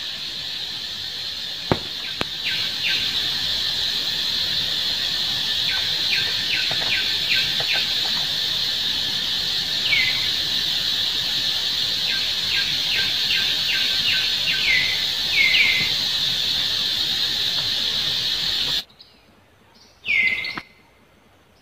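A steady, high-pitched insect drone in outdoor ambience, with many short chirps that each fall quickly in pitch. Near the end the drone cuts off suddenly, and one louder falling chirp follows.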